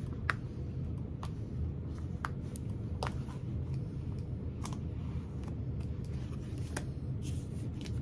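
Soft rustling and scattered light clicks of fabric and vinyl pieces being handled at a sewing machine, over a steady low hum.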